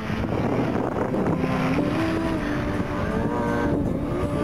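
Snowmobile engines running under throttle, their pitch shifting up and down as the sleds ride through powder.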